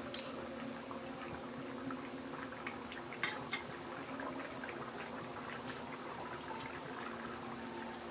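Egg curry gravy simmering and bubbling in a pan, with a few sharp clinks of a utensil against the pan and a faint steady hum underneath.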